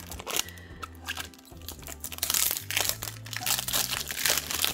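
Clear plastic wrapping crinkling as it is handled and pulled off a perfume box. The crackling comes thicker and louder in the second half.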